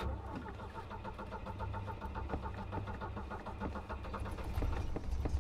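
Volvo PV 544's four-cylinder engine idling, heard from inside the cabin: a steady low hum with a fast, even ticking over it.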